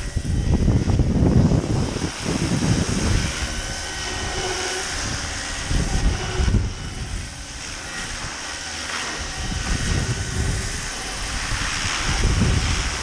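Roban 700-size Black Hawk scale RC helicopter in flight, its rotors and drive giving a steady high whine. Irregular gusts of wind rumble on the microphone over it, loudest about a second in and near the end.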